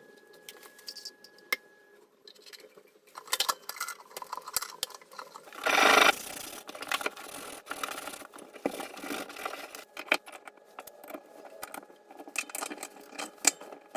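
Hand-work noises while plumbing a water heater: scattered clicks, rattles and scrapes of tools and parts being handled, with one louder brief rushing burst about six seconds in.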